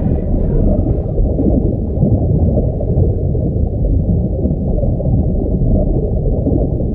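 Muffled underwater ambience: a steady deep rumble of water with gurgling. The last muffled traces of music die away about a second in.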